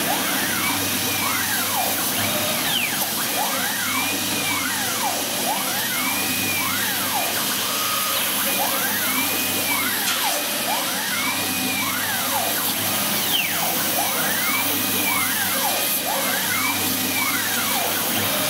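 Fabric laser cutting machine at work: the motors driving the laser head whine up and then down in pitch, about once a second, as the head speeds up and slows down along its cutting path, over a steady rushing hiss.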